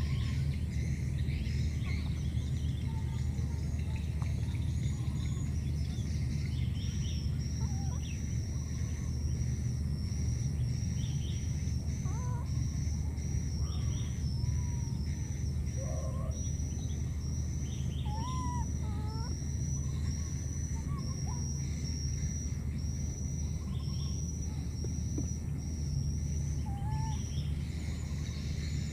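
Outdoor field ambience: a steady low rumble, with a high thin chirp that sets in about a quarter of the way through and repeats roughly once a second. Scattered brief gliding calls are heard throughout.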